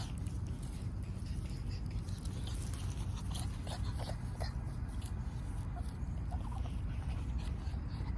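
Yorkshire terrier puppy giving a few faint, short whimpers over a steady low rumble.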